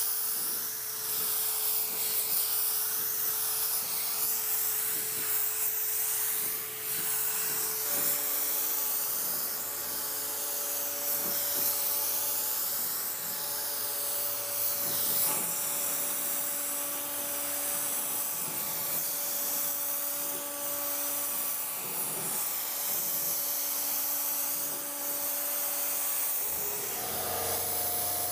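Gravity-feed automotive spray gun hissing as it sprays clear coat, the hiss swelling and fading with each sweeping pass over the panel.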